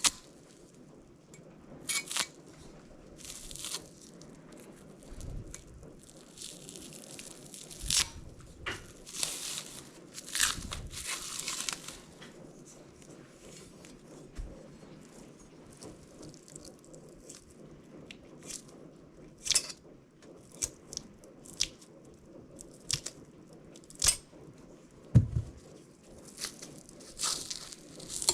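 Plastic wrap being torn and pulled off a tightly wrapped package, in irregular crinkling rips and rustles with scattered sharp clicks.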